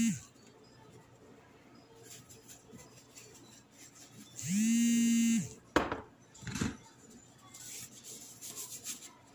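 A steady low buzzing tone about a second long, a little after halfway. A sharp clack follows, then faint light rattling as a plastic spice shaker is shaken and handled over chicken in a glass bowl.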